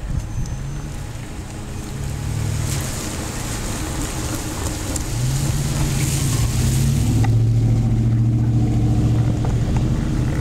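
Road traffic crossing a wet grade crossing: tyre hiss on wet pavement for a few seconds, then a low steady engine hum that grows louder in the second half.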